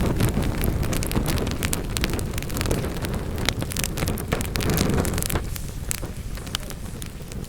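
Wood fire crackling and popping in a fireplace, with many sharp snaps over a low rumble of burning; the rumble swells about five seconds in, then drops away over the last two seconds while the crackles go on.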